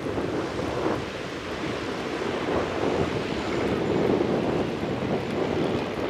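Wind buffeting the microphone over the running engine of a Piper PA-28-181 Archer II, its four-cylinder Lycoming, as the light aircraft rolls along the runway.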